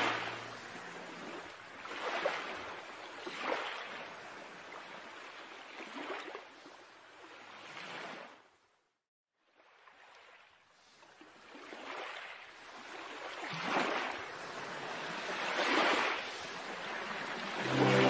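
Small sea waves washing in among shoreline rocks: a rushing surf hiss that swells and falls back about every two seconds. The sound cuts out for about two seconds near the middle.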